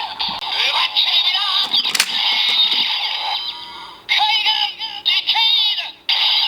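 Kamen Rider Ghost toy transformation belt playing its electronic transformation song and sound effects for the Decade Eyecon through its small built-in speaker. The sound cuts out abruptly twice, about four and six seconds in.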